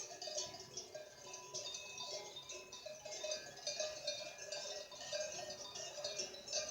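Cowbells ringing in an irregular, continuous jangle of several overlapping tones.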